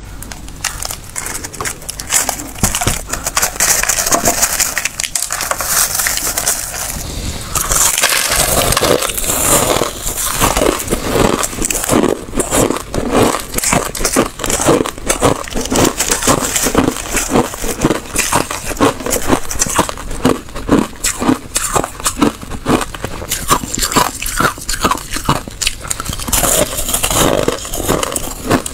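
Crushed ice being bitten and chewed close to a lapel microphone: a dense run of crisp crunches that settles into a steady chewing rhythm about twelve seconds in.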